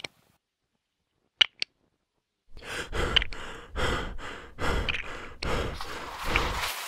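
Two light clicks, then about four seconds of heavy, breathy huffing in uneven pulses, like a person breathing hard with effort, which stops abruptly.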